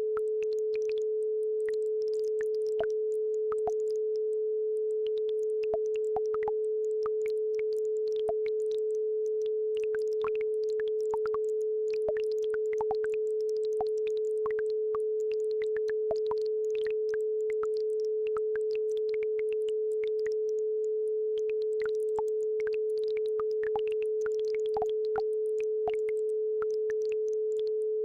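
Steady 432 Hz pure tone holding one pitch throughout, with faint babbling-brook water sounds, scattered small plinks and trickles, beneath it.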